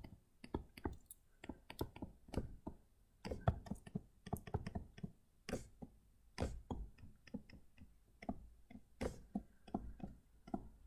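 Pen stylus tapping and clicking on a tablet screen during handwriting: faint, irregular clicks, several a second, in uneven clusters.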